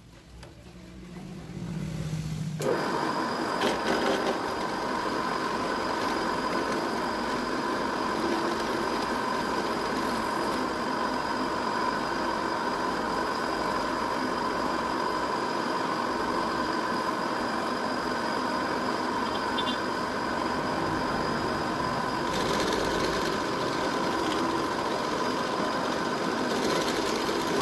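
Bench drill press switched on, its motor coming up to speed over the first two and a half seconds, then running steadily with a high whine as the bit cuts into a white plastic workpiece held in a machine vise.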